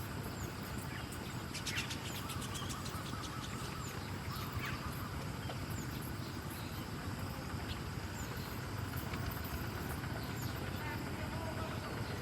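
Steady low outdoor background rumble with a few short, faint bird chirps scattered through it.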